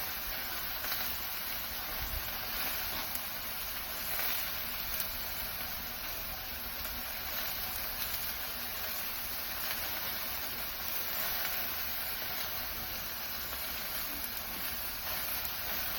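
Smashed turkey-mince burger patties sizzling steadily on a Blackstone flat-top griddle.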